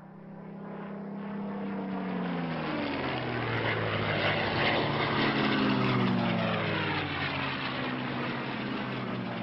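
Propeller-driven piston aircraft flying past, its engine drone swelling in from silence and falling steadily in pitch as it goes by.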